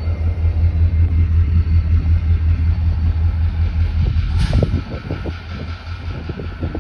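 Low, steady rumble of CSX diesel locomotives in a rail yard, with a faint steady whine over it. A brief hiss comes about four and a half seconds in, followed by scattered light knocks.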